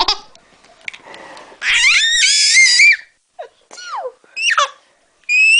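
A small child squealing and shrieking with laughter. There is a long rising squeal about two seconds in, then several short falling squeaks and a loud squeal near the end.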